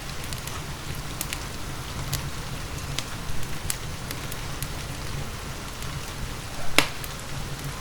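Steady rain mixed with a crackling wood fire: a continuous hiss with a low rumble, and scattered sharp pops and snaps, the loudest near the end.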